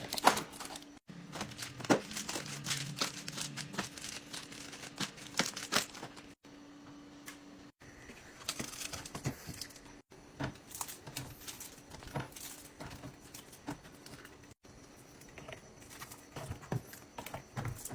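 Fridge restocking: plastic packaging crinkling and tearing, with many sharp clicks and taps as containers are handled and set down, in short clips that cut off abruptly every few seconds.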